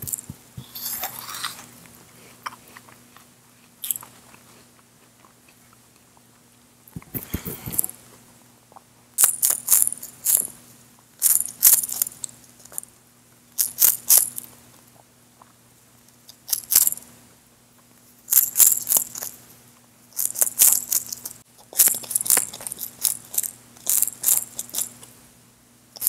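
Crisp food being bitten and chewed close to the microphone: groups of a few quick crunches with short pauses between, growing more frequent after about nine seconds. A dull knock comes about seven seconds in, over a faint steady hum.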